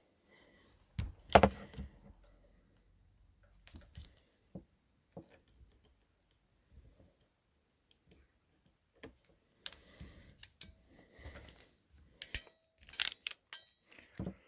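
Irregular small clicks and knocks from handling Anderson Powerpole connector parts, wire and a crimping tool. The loudest knock comes about a second and a half in, and a dense run of clicks comes near the end.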